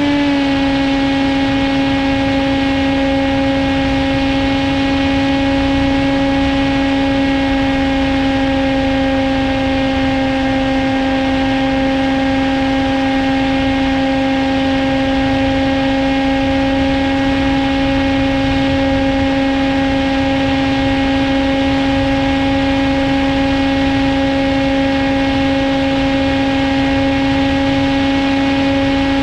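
Electric motor and propeller of a Caipirinha II FPV wing at steady cruise throttle: a constant buzzing whine at one pitch, heard from the onboard camera with wind rushing over it.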